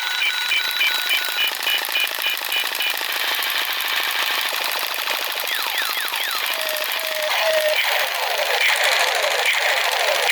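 A battery-powered toy M16 plays its electronic firing sound: a fast, continuous machine-gun rattle. Rows of short beeps run through the first few seconds, and several quick pitch sweeps come about two-thirds of the way in.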